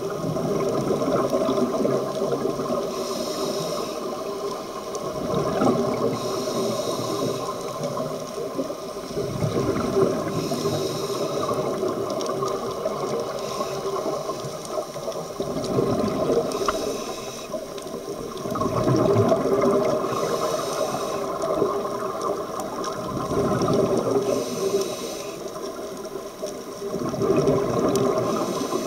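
Scuba diver breathing through a regulator underwater: a hiss on each breath alternates with the rumbling gurgle of exhaled bubbles, in a regular cycle about every four seconds.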